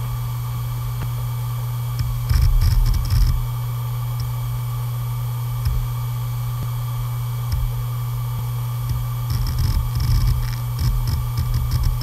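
Malfunctioning hard disk drive: a steady low hum with a faint whine, broken by bursts of rapid clicking and scratching about two seconds in and again near the end. These are the mechanical-failure noises of a damaged drive.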